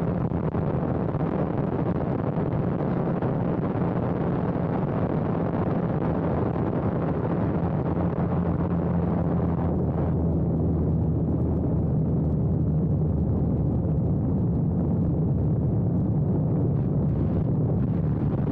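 Biplane's piston engine running with heavy wind rush over the airframe, a steady low hum under a rushing noise. The rushing hiss eases about halfway through.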